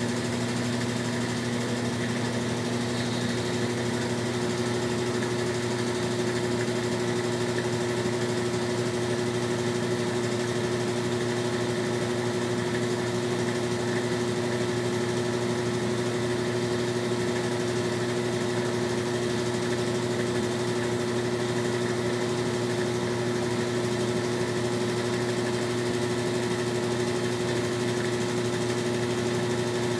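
Brastemp Tira Manchas Pro 12 kg top-load washing machine running steadily with a constant motor hum during a wash cycle.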